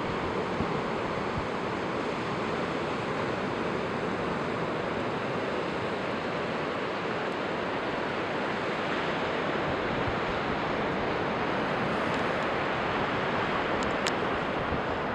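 Surf breaking on a sandy beach: a steady, even rush of sea noise.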